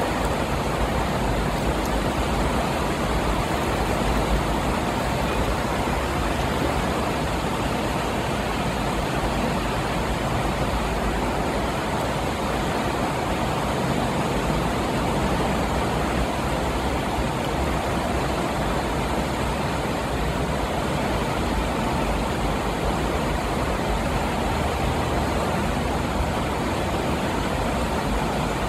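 Steady rushing noise of a fast-flowing, flooded river.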